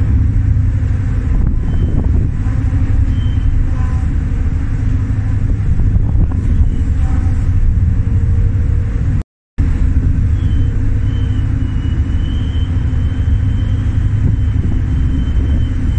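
Loud, steady low rumble on the open car deck of a ferry under way: the ship's engine drone mixed with wind buffeting the microphone. The sound cuts out briefly about nine seconds in.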